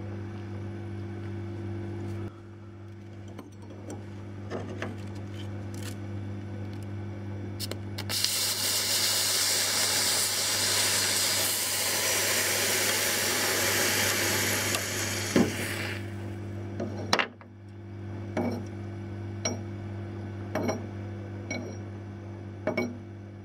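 Aerosol freeze spray hissing in one long blast for about eight seconds, over a steady electrical hum. After it stops come light ticks roughly once a second.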